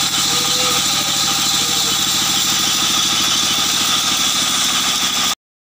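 Sawmill machinery running steadily, with a fast, even low pulsing throb. It cuts off suddenly about five seconds in.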